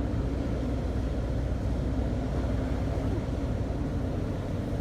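Steady low engine drone of a large cruise ship passing close by, an even rumble with a constant hum.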